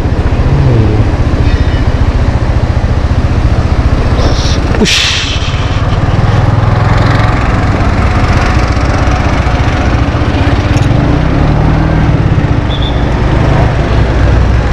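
Suzuki Skydrive scooter engine running under way, with a dense steady low rumble; the engine note rises and falls once about three-quarters of the way through.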